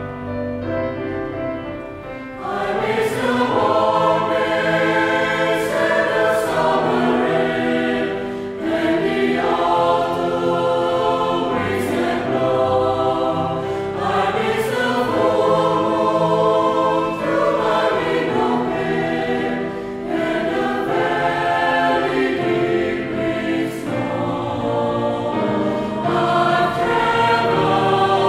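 Mixed choir of women's and men's voices singing in English, accompanied by grand piano. The piano plays alone for about the first two seconds before the choir comes in.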